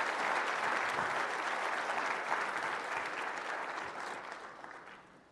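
Audience applauding, a steady dense clapping that fades away over the last second or so.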